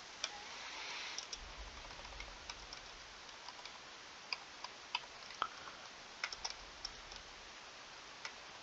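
Computer keyboard keystrokes: a scattered, irregular run of faint clicks as digits are typed, over a steady low hiss.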